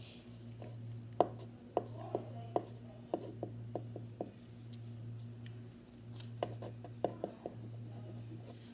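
Irregular light taps and clicks, one or two a second, over a steady low hum.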